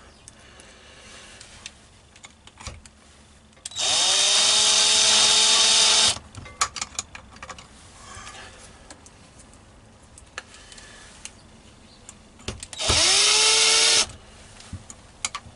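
Power drill run twice at the mounting holes of a CCTV dome camera base: a short spin-up, then a steady high whine for about two seconds, and later a second, shorter run of about a second. Small handling clicks fall between the runs.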